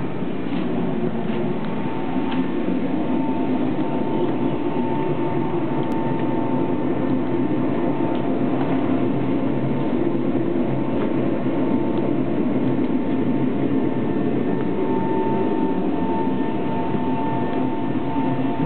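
Airliner's rear turbine running steadily up close: a constant rushing noise with a whine held on one pitch.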